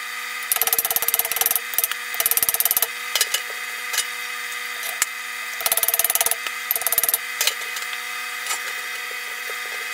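Hand metalwork on a sheet-steel patch piece for a fuel tank: several short bursts of rapid metallic strikes and scraping, each under about a second long, over a steady hum.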